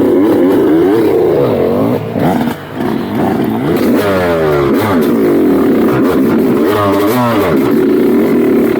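Dirt bike engine revving up and down under throttle, with the throttle shut off briefly about two and a half seconds in and a quick rev near the end.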